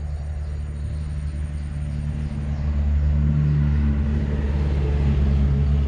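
Road traffic passing on the nearby highway: a low engine rumble with a hiss of tyres that builds up and gets louder partway through.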